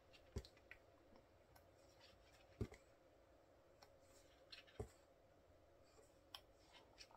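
Near silence with a few faint ticks and paper sounds from the glossy pages of a photobook being turned by hand, about one every two seconds.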